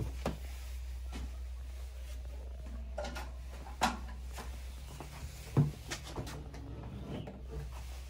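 A few sharp knocks and clatters from the plastic body and lid of a twin-tub washing machine being handled, the loudest about five and a half seconds in, over a steady low hum.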